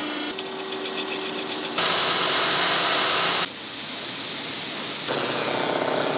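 Pan-factory machinery in quick succession. First a forming press runs with a steady hum. About two seconds in, a loud spray hiss of coating being sprayed onto pans starts, then drops to a softer hiss. Near the end, a pan spins against an abrasive strip with a rising machine whirr.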